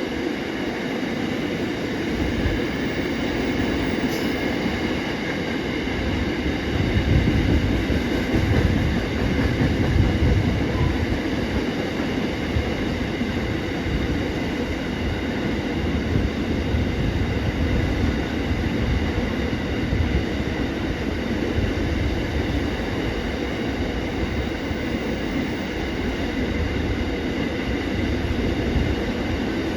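A train running on the rails for a long stretch: a steady wheel-and-rail rumble with a high ringing whine of several steady tones over it.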